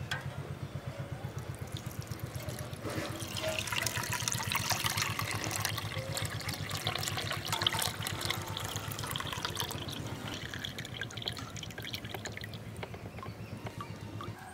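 Coconut milk poured in a thin stream through a mesh strainer into a metal bowl: a trickling, splashing pour, loudest in the middle seconds, over a low rapid pulsing.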